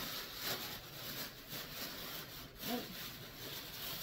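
Thin plastic bag crinkling and rustling in uneven bursts as it is pulled and bunched around a heat press.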